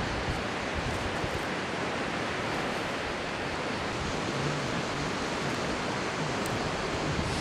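Steady rushing wind noise, with low buffeting on the microphone.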